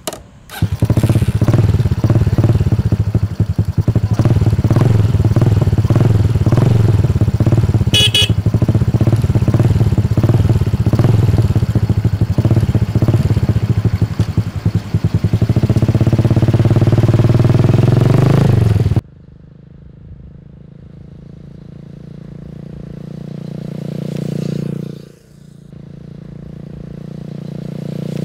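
Home-built Honda 67-style motorcycle's small single-cylinder four-stroke engine catching after a kick start and running loudly at a standstill, its pitch rising as it is revved near two-thirds of the way in. After an abrupt cut, the same bike is heard farther off, growing louder and then fading as it rides past, twice.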